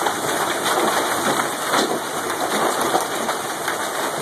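Large hailstones pouring down in a heavy hailstorm, a steady, dense hiss of countless impacts on the ground and surroundings.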